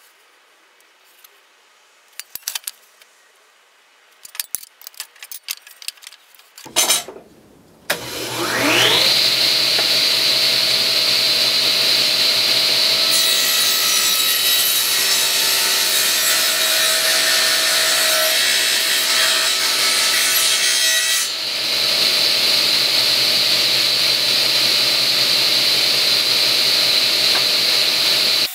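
Old Sears Craftsman table saw: a few light knocks and clicks, then the motor switches on about eight seconds in and the blade spins up with a rising whine to a steady high running pitch. For about eight seconds in the middle the blade cuts along the edge of a hardwood board, adding a loud rasping hiss, then it runs free again.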